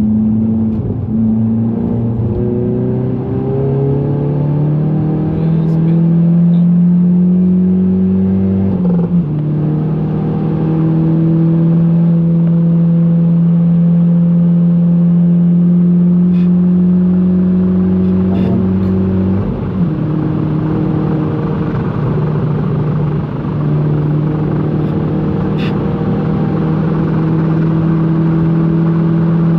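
GTI's engine pulling hard under full throttle, heard from inside the car, its pitch climbing slowly through long gears. There are two upshifts, about nine seconds in and again about twenty seconds in, each with a quick drop in pitch.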